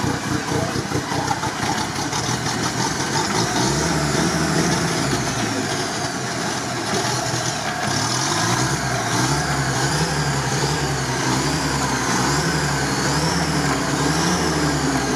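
UAZ off-roader's engine running under load as the truck climbs out of a river on a winch line. From about four seconds in, its pitch rises and falls over and over as the throttle is worked.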